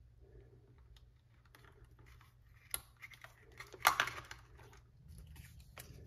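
Plastic clicks and faint handling noise as a small rechargeable battery is fitted into the battery compartment of a toy RC monster truck: a sharp click a little before 3 s and a louder click about 4 s in.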